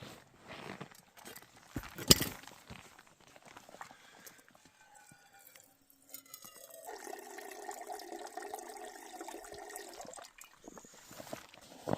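Water being poured into a small camp cooking pot, the pitch rising as it fills. A sharp clink comes about two seconds in.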